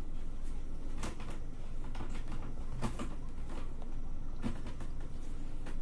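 A handful of light, irregular taps and knocks over a steady low room hum.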